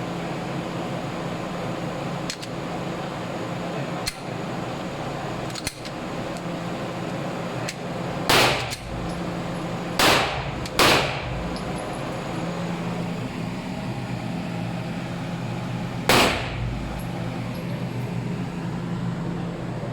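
Pistol shots at a firing range: four loud shots, irregularly spaced, two of them close together near the middle. Fainter sharp cracks sound in between, over a steady background hum.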